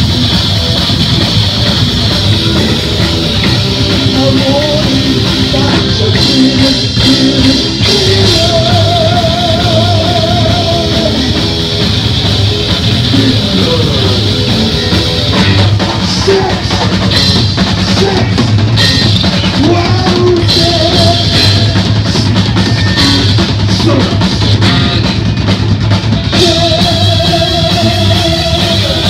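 Heavy metal band playing live and loud: distorted electric guitar, bass and a drum kit, with singing at times. Held, wavering notes ring out about nine seconds in and again near the end.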